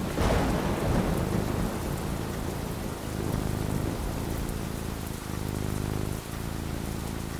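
A clap of thunder just after the start, rumbling off over a second or two, over steady falling rain.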